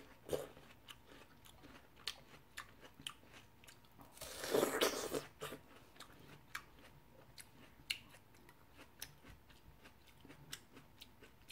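Close-up eating sounds of a mouthful of watermelon being chewed: many small, wet, crisp clicks, with a louder stretch of noisy chewing about four seconds in.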